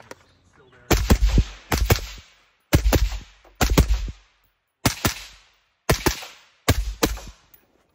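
AR-style carbine fired rapidly, mostly in quick pairs about a second apart, each sharp shot trailed by a brief echo.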